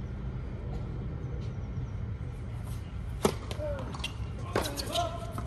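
Tennis serve: a racket strikes the ball with a sharp crack a little past the middle, followed about a second and a half later by another ball impact as the point plays on. Short pitched squeaks or grunts come after each hit, over a steady low outdoor hum.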